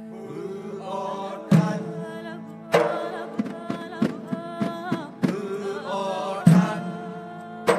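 Live Acehnese music: an ornamented, wavering vocal melody over large frame drums (rapa'i), with a few heavy drum strikes and lighter beats about every half second between them.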